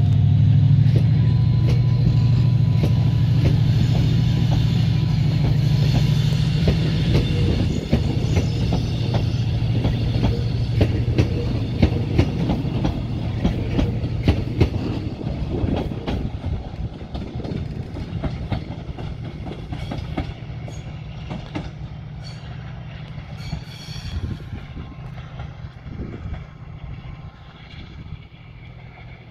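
TransPennine Express passenger train pulling out of the station past the platform. A steady low hum fades after about seven seconds, then the wheels click over the rail joints as the coaches go by. The sound dies away as the train leaves.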